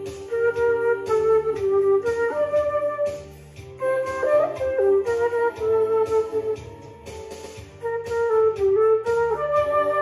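Silver concert flute playing a melody over a recorded backing track with a steady bass line. The flute pauses briefly between phrases about three seconds in and again around seven seconds in.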